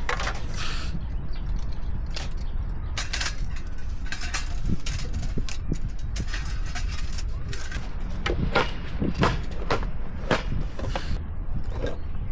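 Irregular clicks and knocks of camping gear being handled, over a steady low rumble of strong wind on the microphone.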